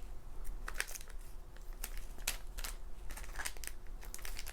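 Light, uneven taps and rustles of photo cards being handled and laid down on a pile.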